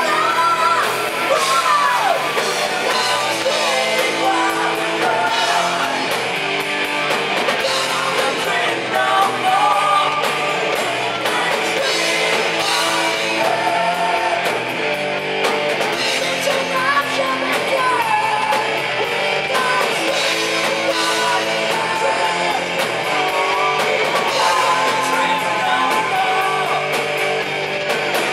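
Live heavy metal band playing: distorted electric guitars, bass and drum kit under a singer's vocal line.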